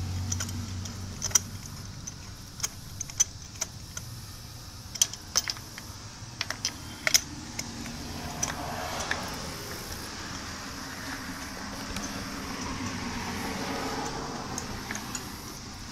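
Scattered metallic clicks and clinks of hand tools at work as a new spark plug is fitted and tightened into the engine, thickest in the first half, over a low steady background hum.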